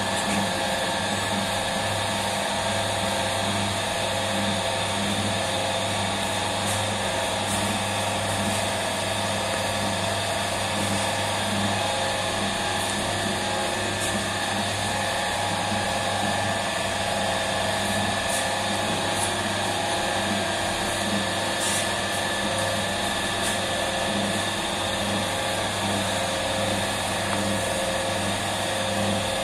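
Bakery machinery running with a steady electric motor hum, an even drone that does not change in pitch or level.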